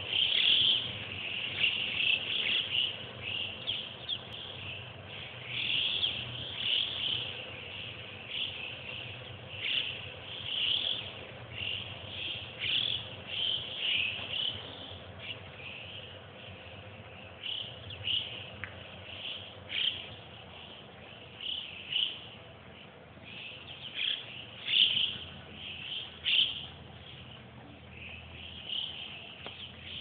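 A flock of Alpine choughs calling: many short, high whistled calls, some sliding downward, overlapping all through and growing sparser in the second half.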